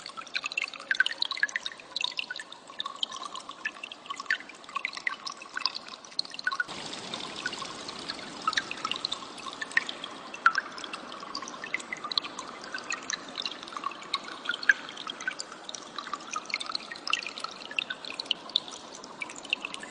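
Cililin bird calling in many short, sharp high chirps over running stream water. The water noise gets louder about seven seconds in.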